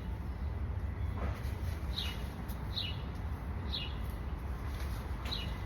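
A songbird chirping: four short, high chirps, each falling in pitch, spaced about a second apart from about two seconds in, over a steady low rumble.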